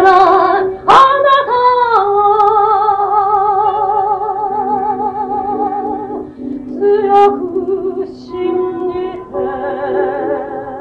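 A woman singing long held notes with a wavering vibrato over sustained instrumental music, with a sharp struck attack about a second in.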